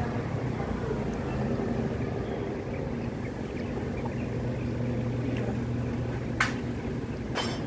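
A steady low mechanical hum, like a motor or engine running, with two short sharp clicks near the end.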